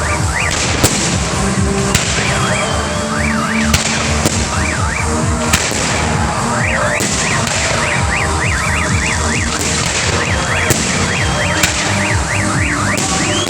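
Fireworks going off in a string of sharp bangs and cracks, with a wailing tone that rises and falls over and over behind them.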